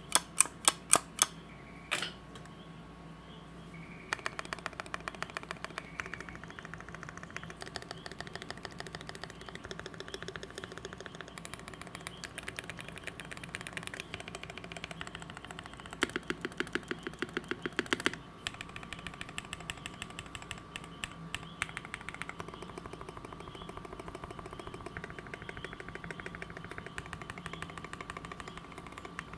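Fast typing on a custom Perry Works Mc65 mechanical keyboard, an aluminium-plate, burger-mounted board with lubed Gateron Red Ink / Tecsee Ruby linear switches. The keystrokes come as a quick, steady patter, with a few loud strokes at the very start and a run of louder, deeper strokes a little past the middle.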